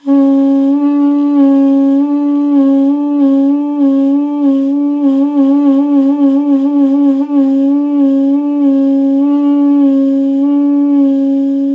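Armenian duduk holding one long note with vibrato whose speed changes in rhythm: slower pulses at first, quickening to the fastest wavering around the middle, then easing back. This is a practice exercise mixing quarter-, eighth- and sixteenth-note vibrato.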